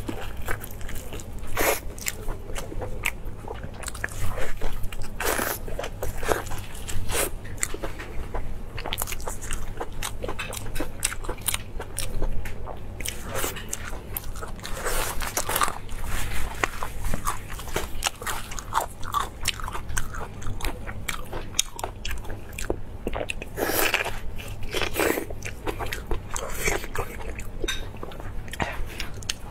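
Biting and chewing of crisp-crusted food, a string of irregular crunches.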